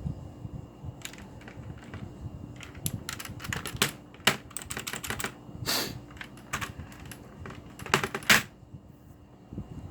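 Typing on a Cherry G80-3800 mechanical keyboard with Cherry MX Blue switches: irregular clicky keystrokes, a few at first, then a quick run of them, with a few louder strokes about eight seconds in before a short lull.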